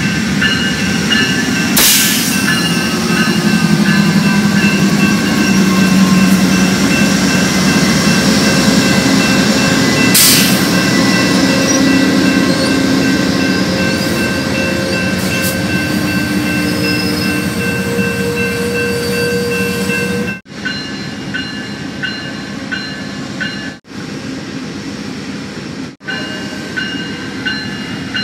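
Amtrak GE Genesis diesel locomotives pass close by with a low engine drone, followed by the steady rumble of passenger cars rolling past, with two sharp clicks along the way. About 20 seconds in, the sound cuts to a quieter, more distant rumble of another diesel-hauled train approaching.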